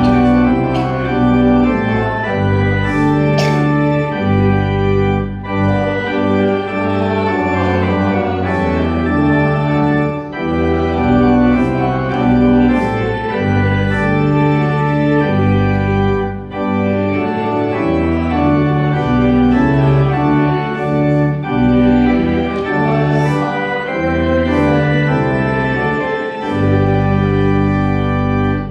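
Church organ playing slow, sustained chords that change every second or so over a moving bass line.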